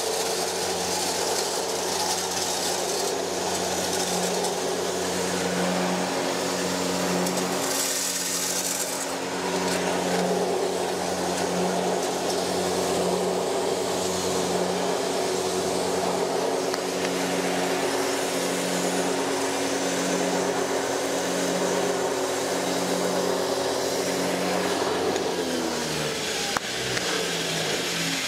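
A 9FC-21 hammer-mill grain grinder, driven by an electric motor, grinds maize at a steady pace. A humming drone sits under a rushing, grinding hiss as the suction feed draws the grain in and fine meal blows out through the cyclone. Near the end the hum slides down in pitch, and there is one click.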